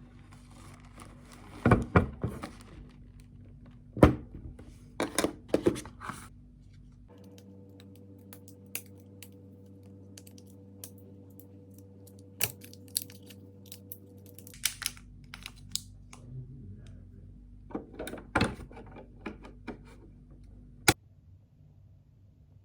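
Objects being handled: scattered thunks, taps and clicks, with a sharp click near the end, over a steady low hum.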